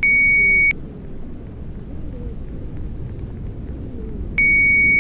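Two loud electronic alert beeps, each a single steady high-pitched tone lasting under a second, one at the start and one near the end, over steady low background noise.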